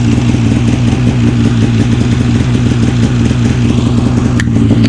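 2015 Polaris Switchback Assault snowmobile's two-stroke engine idling steadily on freshly installed spark plugs, the hard-starting problem cured. A single sharp click near the end.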